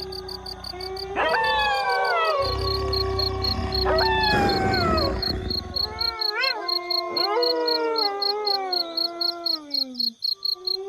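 A pack of wolves howling in chorus: several long howls overlap, each starting high and sliding down in pitch. More voices with shorter, wavering howls join about six seconds in.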